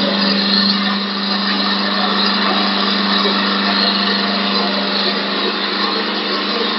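Mini double-cutter CNC wood lathe turning a wooden blank: a continuous rasping hiss of the cutters shaving wood over a steady low hum from the spindle motor.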